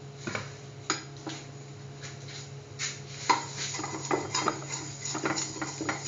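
A utensil scraping and clinking against a metal frying pan as oil is spread over its surface: a few separate taps at first, then a busier run of scraping from about halfway.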